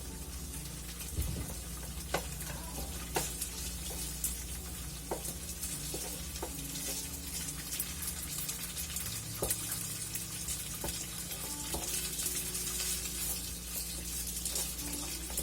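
Pieces of pork frying in a thick pan, a steady crackling sizzle with scattered sharp clicks as the meat is stirred. A steady low hum runs underneath.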